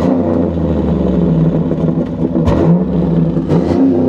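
A pickup truck's V8 engine running steadily, its pitch shifting about two and a half seconds in and again a second later, with a couple of brief knocks.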